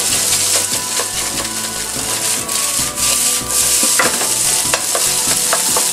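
Rice sizzling in hot oil in a frying pan while a ladle presses and scrapes it to break up the clumps, with a few sharp knocks of the ladle against the pan near the end.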